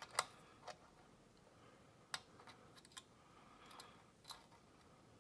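Faint, irregular metallic clicks of a pick wire and tensioner working inside a lever padlock, about six small ticks spread over a few seconds as the pick feels for the levers.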